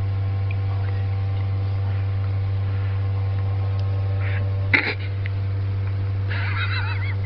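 A steady low hum, with one sharp knock about five seconds in and a brief high, quickly wavering squeak near the end.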